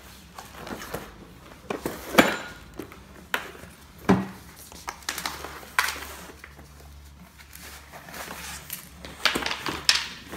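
Cardboard parts box being handled, set down on a hard floor and opened, with plastic wrapping rustling: scattered knocks and a heavier thump about four seconds in. Near the end, a quick run of clicks as the metal-and-rubber caster wheels inside the box are handled.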